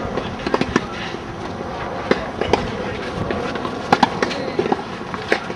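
Tennis balls struck by rackets in a clay-court rally: sharp pops at irregular intervals, roughly one every second or less, some fainter than others.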